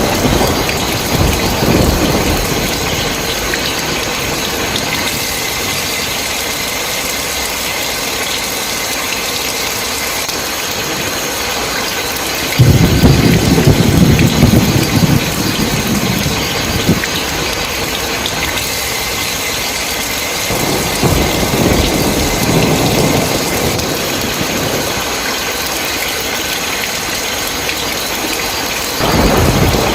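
Heavy, steady rain with rolling thunder. A loud low rumble starts suddenly about twelve seconds in and fades over several seconds, a softer one follows around twenty seconds, and another starts near the end.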